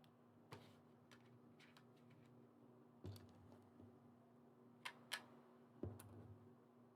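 Quiet, scattered light clicks of small plastic Lego pieces being picked up and sorted by hand, about seven in all, the loudest a quick pair about five seconds in.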